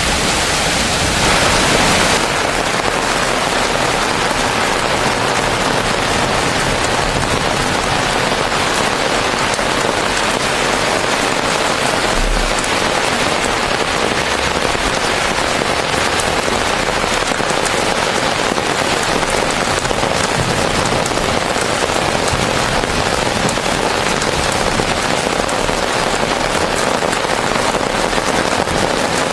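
Heavy rain pouring down steadily onto pavement and foliage: a dense hiss with a fine patter of drops striking hard ground. It is a little louder for the first two seconds, then settles to an even level.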